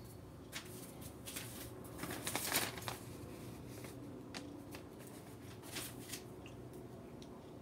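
A folded paper letter rustling and crinkling as it is handled. The rustling is loudest about two seconds in, with a few lighter crinkles later.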